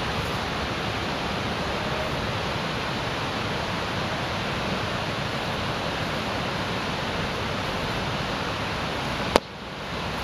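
Steady rushing noise with no distinct events, and a sharp click near the end, after which the noise dips for a moment and comes back.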